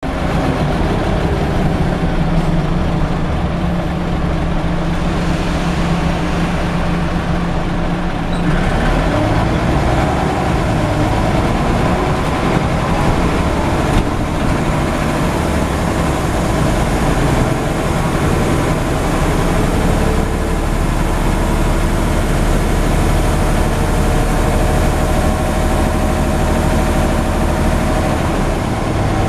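Scania CN94UB Omnidekka double-decker bus's engine and drivetrain running as the bus travels, heard from the upper deck, a steady drone. About eight seconds in the note climbs in pitch as the bus accelerates, and it changes again around two-thirds of the way through.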